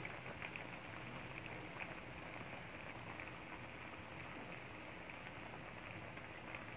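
Squid soup in broth simmering in a wide metal wok: a faint, steady bubbling with small scattered pops.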